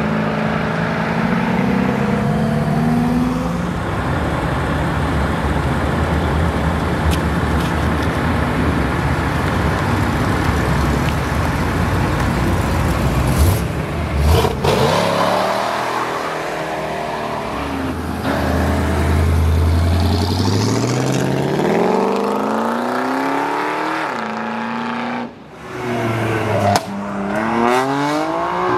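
Cars accelerating away one after another. First classic American V8 muscle cars, one of them a Dodge Challenger R/T: a deep, steady burble at low revs, then engine notes that climb as each car pulls away. Near the end a BMW M4's twin-turbo inline-six revs up.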